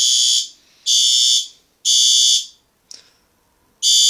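System Sensor SpectrAlert Advance fire alarm horns sounding the temporal-3 evacuation pattern: three short, loud, high-pitched blasts about a second apart, then a pause, and the next cycle starts near the end. This is the signal of an activated pull station.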